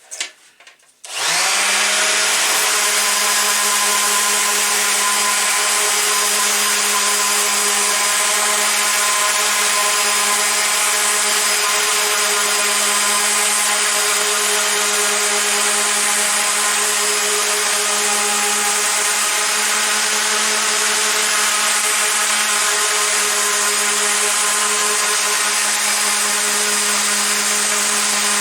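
Mac Allister SOS300 300 W corded random orbital sander starting up about a second in, then running steadily as it sands wood with 180-grit paper: a steady motor hum under the hiss of the pad.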